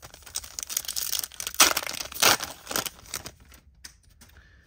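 Foil wrapper of a trading-card pack (2022 Topps Chrome Sapphire) being torn open and crinkled by hand, with sharp crackles loudest in the middle that die away near the end.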